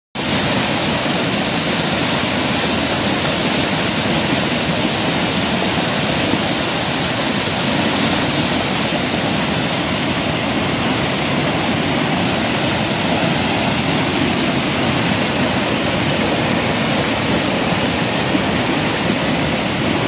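Swollen, muddy floodwater pouring over a low dam in a loud, steady rush, the river running in flood.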